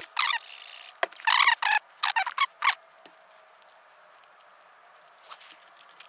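Heat-shrink tubing being forced along a wire by gloved hands, giving a few short squeaky rubbing bursts in the first three seconds after a brief hiss. The tubing is too narrow to pass over the wire's rubber sheath.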